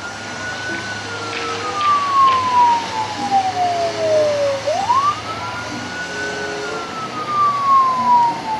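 Police car siren wailing: each cycle rises quickly, holds a moment, then falls slowly over about four seconds, and the wail repeats twice, over steady background noise.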